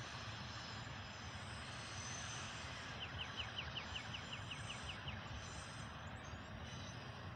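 Double-stack intermodal freight train rolling past, a steady low rumble of wheels on rail. About three seconds in, a bird gives a quick run of about ten short high notes lasting some two seconds.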